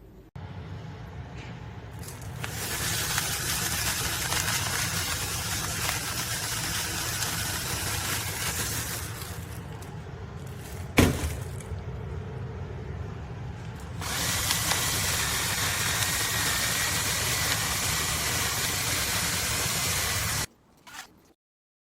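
A battery-powered electric salt and pepper grinder's small motor running and grinding in long runs, with a sharp knock about halfway through. The sound gets louder with a faint whine for its last stretch, then cuts off suddenly near the end.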